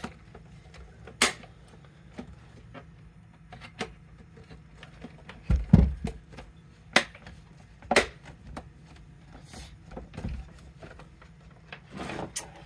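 Plastic housing parts of a Nespresso coffee machine being handled and pressed together, with scattered sharp clicks of the clips snapping into place and a heavier thump about six seconds in.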